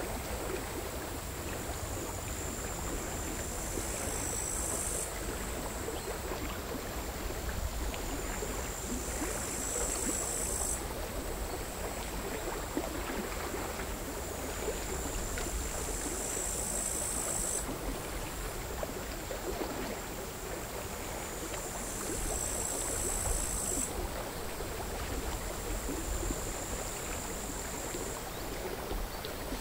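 Bush crickets singing in long, high, buzzing phrases that swell and stop abruptly about every six seconds, over the gentle, irregular lapping of small sea waves.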